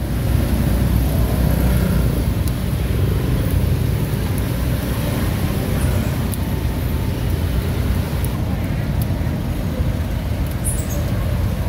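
Steady road traffic noise: a low, continuous rumble of passing vehicles.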